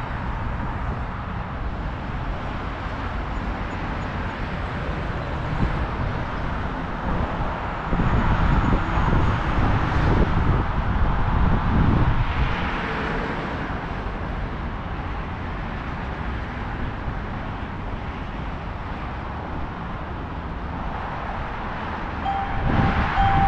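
Washington Metro train running at the station platform with a steady low rumble that swells for several seconds in the middle, then eases back. A short steady beep sounds near the end.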